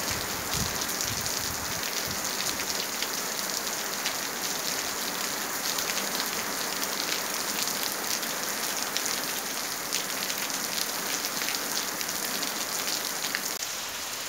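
Heavy rain falling steadily on a stone-paved patio and tree leaves: an even hiss with many fine drop splashes.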